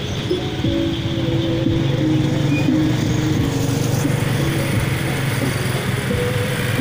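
Engines of motorcycles and float vehicles running together in a slow procession: a steady low drone, with a few faint held tones above it.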